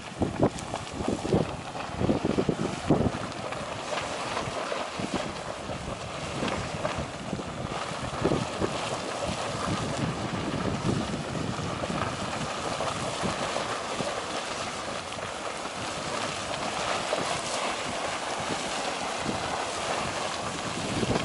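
Geyser erupting: a steady rush and splash of water. Low gusty buffeting, like wind on the microphone, comes in the first few seconds.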